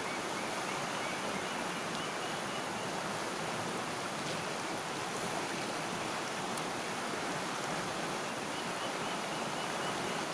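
Steady, even rushing of a shallow river flowing around boulders.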